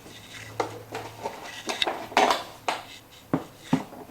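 Plastic washing machine door outer and inner frame clicking together as they are squeezed around the edge, a series of about seven irregular sharp clicks and snaps.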